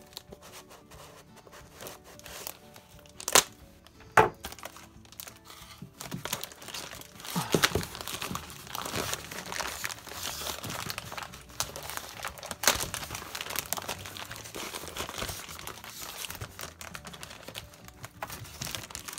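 Plastic poly mailer bag being handled and torn open by hand: two sharp knocks a few seconds in, then from about six seconds on continuous crinkling and tearing of the plastic, with a sharp snap about halfway through.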